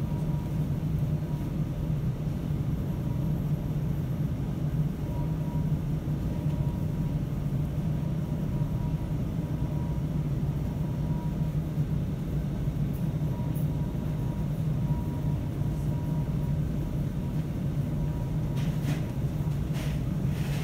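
Steady low droning hum of a large store's building machinery, with a faint thin tone above it and a couple of soft clicks near the end.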